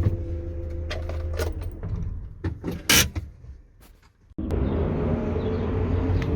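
GAZelle Next van engine idling, then shutting off about a second and a half in, followed by several knocks and clunks from the body, the loudest about three seconds in. The knocking comes from the body shifting on a loose body-to-frame mount that has one bolt missing and two loose. After a moment of near quiet, a steady running noise starts suddenly.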